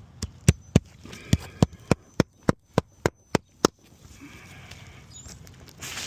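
Hammer driving nails into a shingle roof: about a dozen sharp, evenly spaced strikes, three or four a second, stopping a little under four seconds in.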